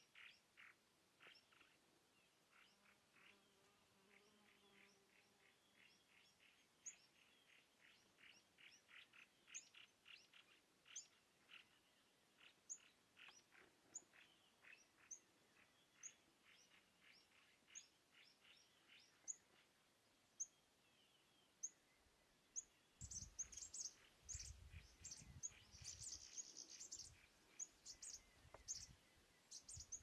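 Faint outdoor birdsong: a fast run of short repeated chirps, with thin high chirps about once a second joining in. Over the last several seconds a low rumbling noise comes in under denser chirping.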